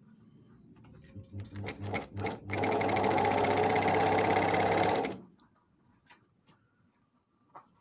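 A 12-needle industrial sewing machine sews a test seam. It gives a few short starts, then runs steadily for about two and a half seconds and stops suddenly.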